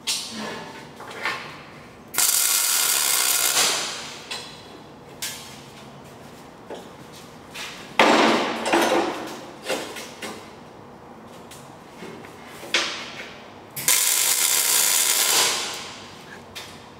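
MIG welder laying a series of tack welds joining steel pipe legs to a steel plate box: short bursts of welding arc, the two longest lasting about a second and a half each, with a sharper, louder burst about eight seconds in.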